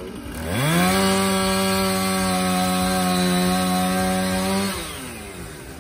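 Chainsaw revved up quickly to full throttle, held at a steady high pitch for about four seconds, then let back down near the end.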